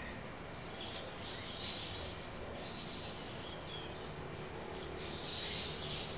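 Outdoor rural ambience: faint high chirps, likely small birds, repeating about once a second over a steady background hiss.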